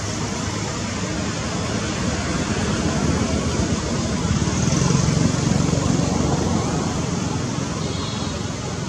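Steady rumble of road traffic, swelling louder about halfway through.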